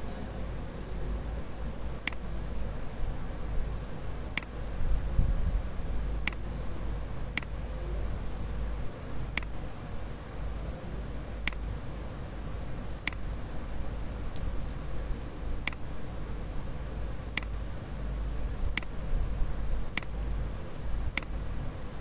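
Sharp single clicks at uneven spacing, about one every one to two seconds, over a steady low rumble.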